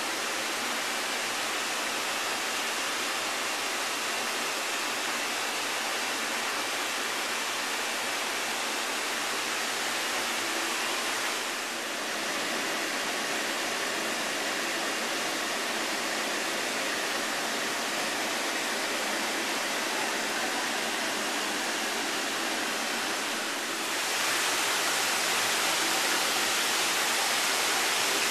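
Steady rushing and splashing of water pouring from PVC return pipes into the sea turtle rehabilitation tanks, stepping up in loudness near the end.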